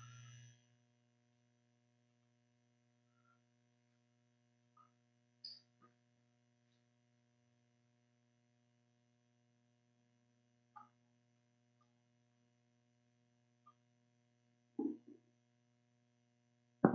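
Near silence with a faint steady electrical hum from the sound system, broken by a few faint clicks and a soft thump near the end.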